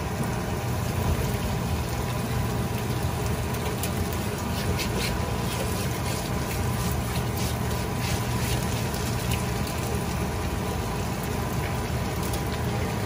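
Cooked rice frying in a hot pan as it is pressed and stirred with a spatula: a steady sizzling hiss, with a few short clicks in the middle.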